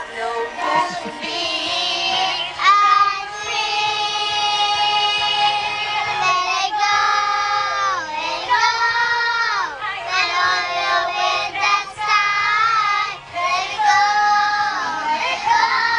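Children singing a song, with long held notes that slide between pitches.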